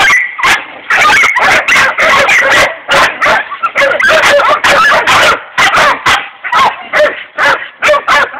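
Several hog-hunting cur dogs barking loudly as they bay a boar hog. The barks come thick and overlapping for the first few seconds, then settle into separate barks about two a second.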